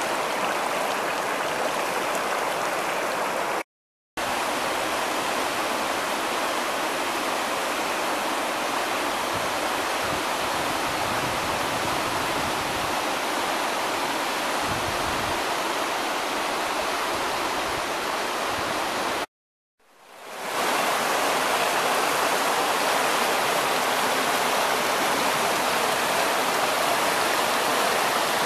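River rapids rushing around rocks: a steady, even rush of fast water. It cuts out twice for a moment, and fades back in after the second cut.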